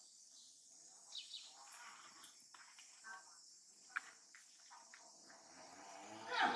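Faint, steady high-pitched drone of insects, with a few short chirps and a single tick scattered through it, and a brief falling squeal just before the end.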